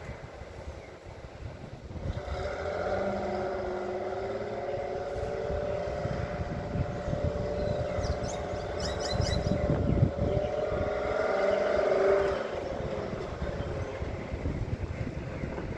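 Drill rig truck's engine and machinery running, a steady whine coming in about two seconds in, building up and then dropping away at around twelve seconds, with a low rumble throughout and one sharp knock about ten seconds in.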